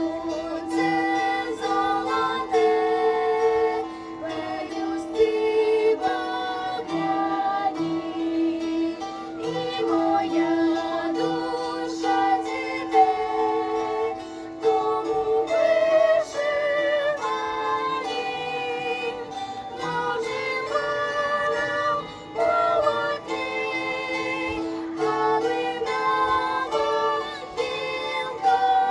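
Ensemble of banduras, Ukrainian plucked-string instruments, playing a tune in quick plucked notes over a note held through about the first half.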